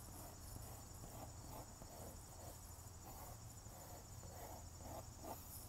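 Graphite pencil lightly scratching on drawing paper in many short, quick strokes, faint and irregular, over a steady faint high-pitched whine.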